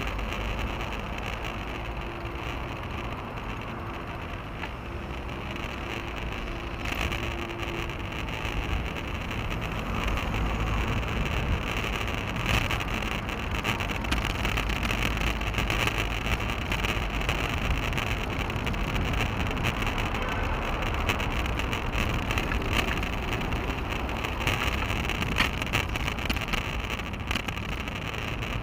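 Steady wind noise on a bicycle-mounted action camera's microphone, mixed with the rumble of the tyres on the path while riding, with a few light knocks from bumps.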